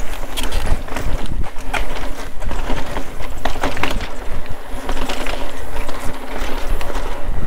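Mountain bike descending a dirt trail: a steady low rumble of tyres and air over the handlebar-mounted camera, with the bike rattling and giving irregular sharp clicks and knocks as it runs over bumps and compressions.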